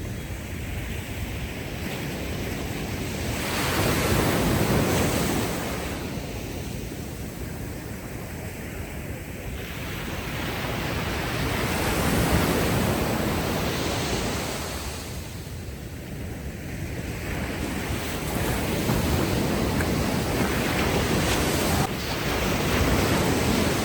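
Ocean waves breaking and washing up on a sandy beach. The surf swells and ebbs about four times, every five to eight seconds.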